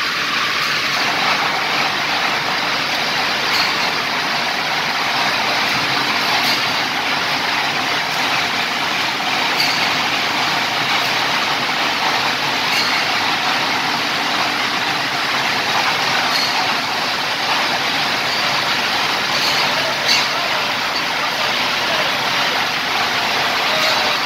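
Plastic tape extrusion line running steadily: the stretching unit's godet rolls and the tapes moving at speed make an even hiss, with a few faint ticks.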